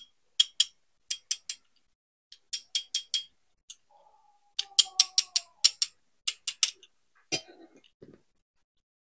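Sharp clicks from handling a plastic RC toy car and its packaging, coming in quick runs of three to five. A brief whir about four seconds in and a knock about seven seconds in.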